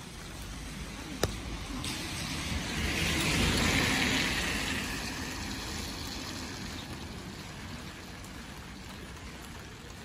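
A small van driving past on a wet road, its tyres hissing on the water, swelling to a peak about four seconds in and fading away, over a steady hiss of rain and trickling water. A single sharp click about a second in.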